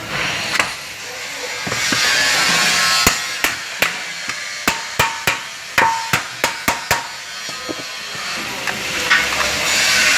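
About a dozen quick, sharp metal taps, bunched in the middle and some briefly ringing, over a steady hiss. The taps are knocks on a seat-belt retractor to free the small locking balls inside it.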